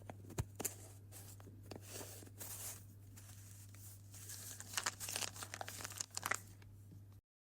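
Jam jar being opened by hand: irregular clicks and scraping, crinkling noises as the lid is worked, over a steady low hum. The sound cuts off suddenly near the end.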